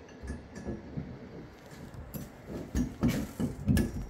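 Light metal clicks and knocks of an Allen key and a chrome shower valve handle being handled and fitted onto the trim: a few faint ticks, then several louder knocks in the last second and a half.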